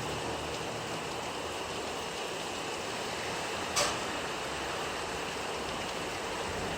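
Steady rain falling, an even hiss, with one sharp click just past the middle.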